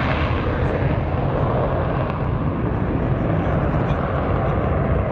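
Saab SK37E Viggen's Volvo RM8 afterburning turbofan at full power with the afterburner lit, as the jet climbs steeply away after takeoff: a steady, loud, deep rumble.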